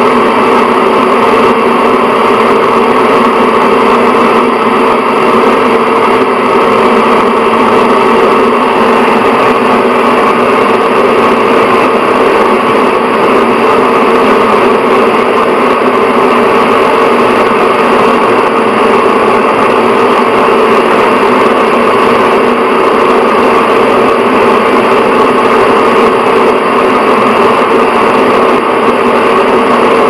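Bathroom exhaust fan running steadily: an even, unchanging whir of moving air with a steady hum in it.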